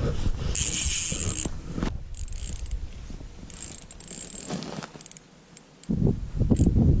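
Fishing reel winding with a whirring, ratcheting sound in short runs, over low wind rumble on the microphone.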